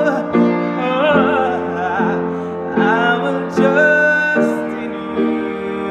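A man singing with a wavering vibrato while accompanying himself on an upright piano with sustained, repeated chords. He holds one long, steady note about four seconds in.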